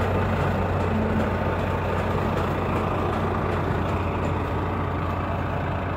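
Vehicle engines running steadily at idle with an even low hum and no revving: the semi-truck and the Audi A8 4.2 quattro that has just stopped towing it.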